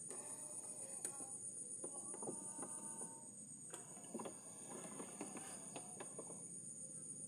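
Steady high-pitched insect chorus, with faint scattered clicks and short tones underneath in the middle.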